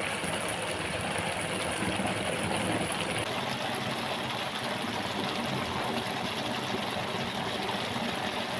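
Steady sizzling hiss of milkfish pieces cooking in a garlic butter and chili sauce in the pan.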